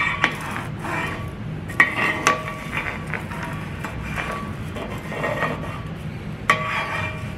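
A magnetic pickup wand scraping across a drill press's metal table, picking up metal shavings, with a few sharp metallic clinks as it knocks against the table.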